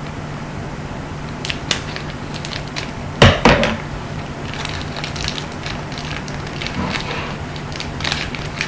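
A foil trading-card pack being snipped open with scissors and its wrapper crinkled as the cards are worked out, with a loud knock on the table about three seconds in.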